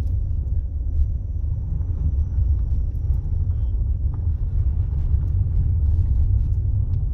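Steady low road rumble heard from inside a moving car, its tyres running over an old brick road, with faint scattered clicks and rattles.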